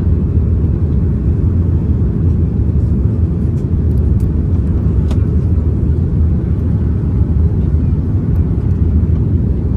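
Jet airliner cabin noise in flight: the steady low rumble of engines and airflow heard from inside the cabin at a window seat, with a faint click or two about halfway through.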